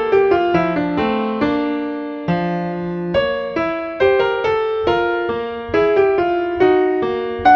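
Piano music: a slow melody of struck notes and chords, each note fading away before the next is played.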